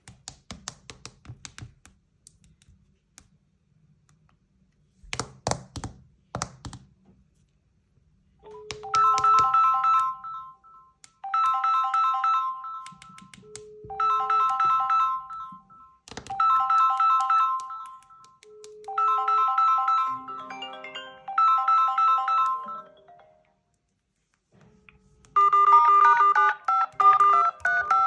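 Mobile phone incoming-call ringtone: a short chime melody repeating about every two and a half seconds, followed near the end by a different, busier ringtone melody. A run of quick ticks and a few thumps come before the ringing starts.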